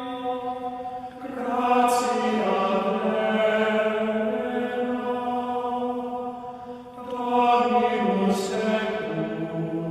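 Chanted vocal music, voices holding long notes in slow phrases. A new phrase swells in about a second in and again about seven seconds in.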